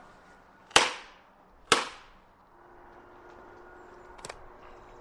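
Two sharp, heavy chopping blows onto a wooden stump, about a second apart, each ringing briefly.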